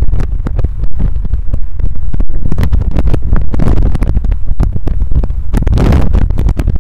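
Loud, distorted rumble of a road recording, car and wind noise on the microphone, chopped into a rapid stutter of clicks and cuts by looping and slowing.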